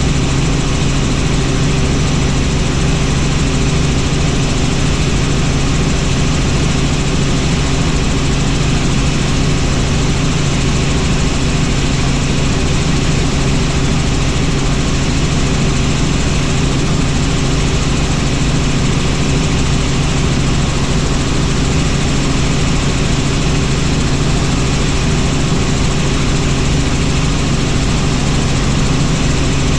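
Helicopter in flight: the steady, loud drone of rotor and engine, with a strong low hum that does not change.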